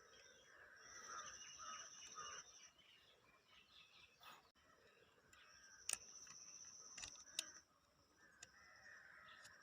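Faint outdoor background of birds chirping and an insect's high, steady trill that stops and starts, with a few sharp clicks in the second half.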